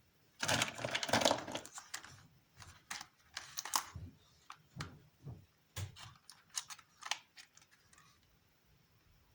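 Toy packaging being handled: a rustle lasting about a second and a half, then a run of light, irregular clicks and knocks that stop near the end.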